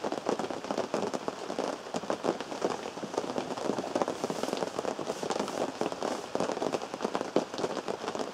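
Rain falling on a big canvas tent, heard from inside: a dense, even patter of many small drop hits on the canvas.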